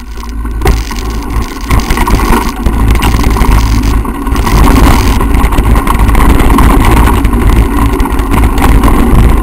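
Wind buffeting the camera's microphone as a mountain bike rattles down a rough dirt trail. It is a deep, steady rumble that grows louder over the first few seconds as the speed builds.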